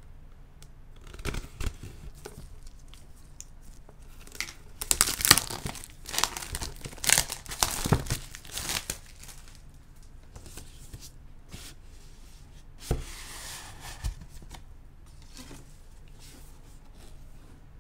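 Thin plastic shrink-wrap being torn and peeled off a cardboard box and crumpled in the hand, crackling and crinkling in bursts that are loudest in the middle. Near the end come a couple of knocks and a short scrape as the bare box is handled.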